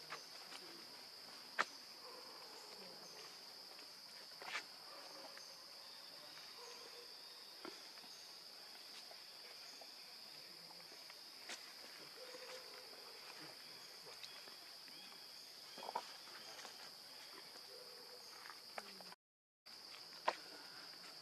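Steady, high-pitched insect chorus droning without a break, with a few sharp clicks or taps scattered through it. The sound cuts out for a moment near the end.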